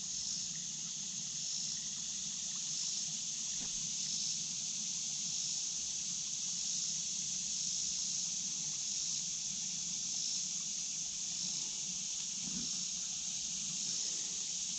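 Steady high-pitched insect chorus, with creek water trickling over the shallows underneath.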